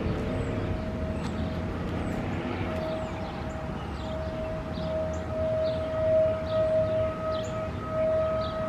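Outdoor warning siren holding a steady tone, swelling and fading in volume and louder in the second half, with small birds chirping over it.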